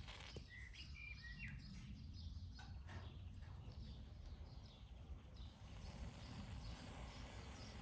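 Quiet outdoor background: a steady low rumble, with a few faint bird chirps about a second in.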